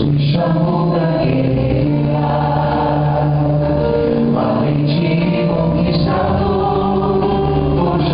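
Gospel worship song playing, choir voices singing over a full band backing.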